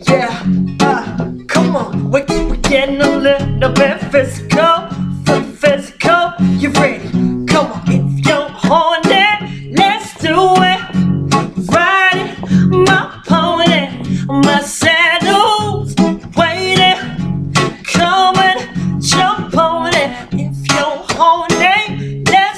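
Acoustic guitar strummed in a steady rhythm while a woman sings into a microphone, her voice sliding and bending through the melody.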